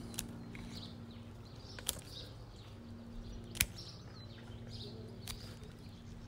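Hand secateurs snipping young Leyland cypress shoots: three sharp cuts about a second and a half apart, the middle one loudest.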